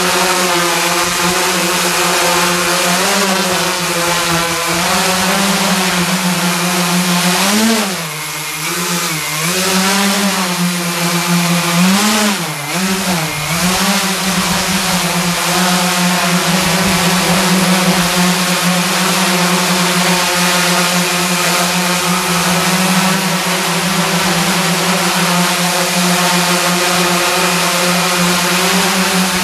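Large hexacopter hovering: its six electric motors, run by Castle Creations Phoenix Edge 100 speed controllers, and propellers make a loud, steady buzzing hum. About eight seconds in, the pitch swings up and down several times for a few seconds as the motors speed up and slow down, then it settles back to a steady hum.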